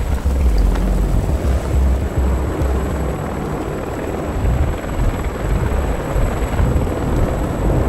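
Deep, rumbling sound effect, heaviest in the low bass, fluctuating without clear beats or a pitch.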